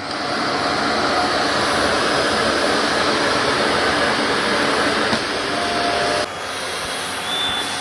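Shark AZ910UKT DuoClean anti-hair-wrap corded upright vacuum cleaner switched on for its first run, motor running with a steady rushing whir. The sound drops a little about six seconds in and carries on.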